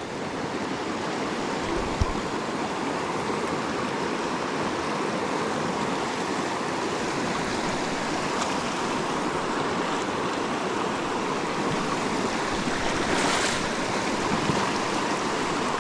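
Steady rush of the Pecos River's flowing water, a fast mountain stream, with a single short knock about two seconds in.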